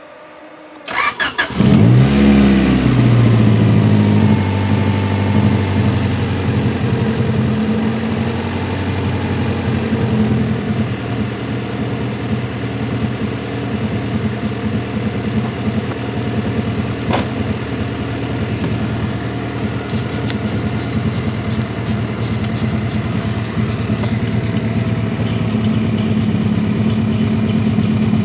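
Honda H22 four-cylinder engine in a Civic cranking and catching about a second in, flaring up, then settling into a steady high idle. The owner puts the high idle down to a vacuum leak at the intake manifold gasket, which has come loose again.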